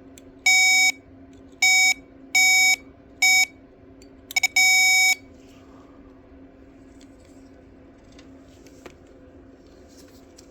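Electronic test-meter continuity beeper: a series of short, loud, single-pitched beeps, irregularly spaced with a few quick blips, in the first half, each sounding as the probe touches a wire that has a path to ground.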